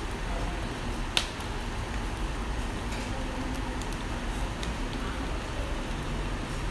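Mackerel fillet grilling on a wire mesh over charcoal: a steady hiss and hum, with one sharp pop about a second in and a few fainter crackles.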